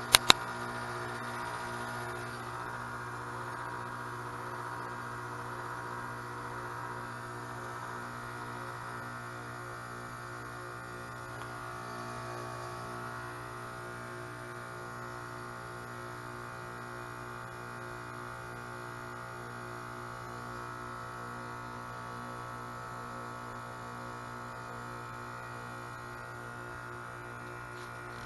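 Carrier 2-ton heat pump outdoor unit running in its defrost cycle: the compressor hums steadily with layered tones. A hiss in the first few seconds slowly eases off. Two sharp clicks sound right at the start.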